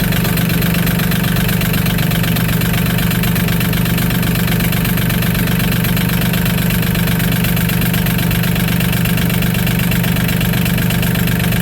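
Mahindra 1626 tractor's diesel engine running steadily and loudly, with no change in speed.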